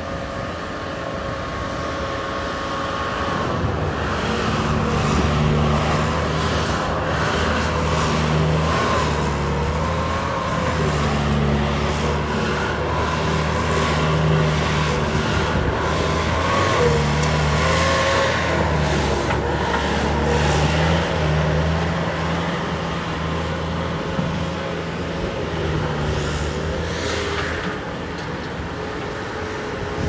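Bobcat S220 skid-steer loader's diesel engine running as the machine drives over gravel. It grows louder over the first few seconds, stays loud through the middle, and fades somewhat near the end, with a whine that wavers slightly in pitch.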